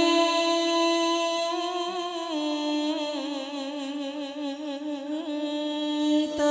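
Male chầu văn (hát văn) singer holding one long unaccompanied note with a wavering vibrato, the pitch stepping down slightly about two seconds in.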